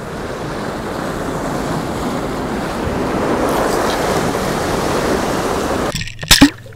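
Ocean surf washing against rocky shore, a steady rushing noise with some wind. About six seconds in it cuts off abruptly, and a brief loud thump follows, then a quiet steady low hum.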